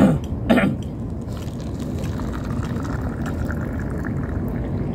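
Liquid pouring from a plastic vacuum flask into a paper cup, a thin steady stream that runs for about three seconds.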